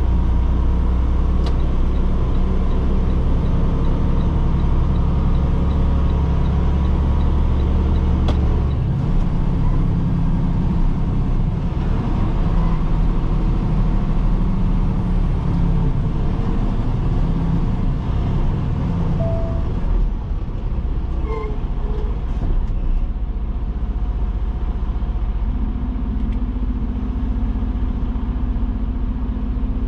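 Semi truck's diesel engine and road noise heard from inside the cab while driving, a steady drone whose deep low note drops away about nine seconds in.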